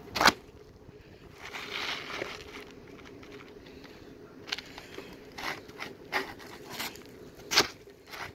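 Asphalt shingles being slid, turned and set down by hand on a shingled roof: scraping rustles and a scatter of sharp knocks and taps. The sharpest knocks come just after the start and again near the end.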